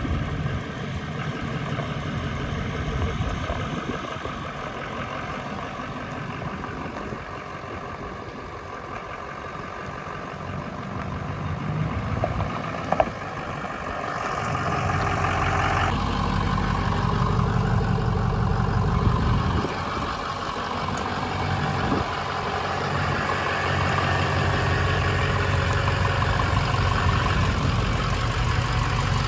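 A 2006 Ford F-250 Super Duty pickup's engine running at low speed as the truck moves slowly, then idling steadily. The idle is louder and evener in the second half. There is a single sharp knock about halfway through.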